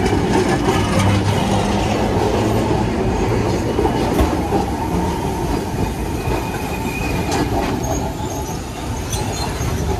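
Old Alexandria electric tramcar rolling on its rails: a steady rumble of steel wheels on the track with a few sharp clicks. Thin wheel squeals come in the second half.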